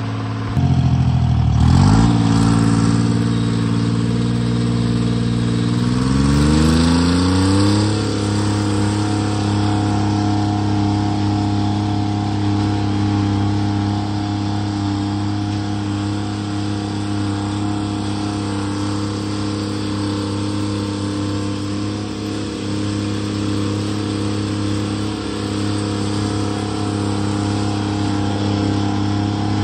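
Timberjack 230 skidder's two-stroke Detroit Diesel engine running, heard from inside the open cab as it drives. Its pitch dips and comes back about two seconds in, climbs between about six and eight seconds in, then holds steady.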